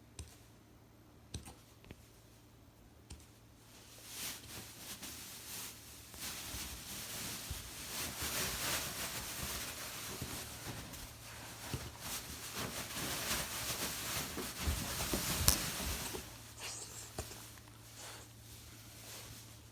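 Puppy hiccuping: short sharp hics every second or so, at first over a quiet room, then over a long stretch of rustling that starts about four seconds in and dies down near the end.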